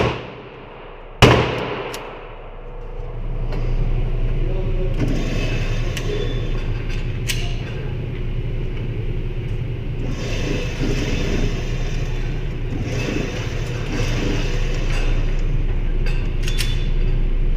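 Two loud gunshots about a second and a half apart, each echoing briefly, followed by a steady low rumble with a few fainter gunshots.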